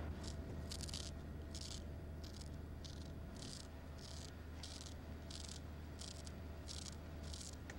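A dry rattling, scraping sound repeated in an even rhythm, about one and a half strokes a second, over a steady low hum.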